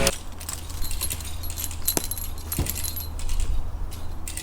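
Metal hardware jingling lightly, with two short knocks about two and two-and-a-half seconds in, over a low steady rumble.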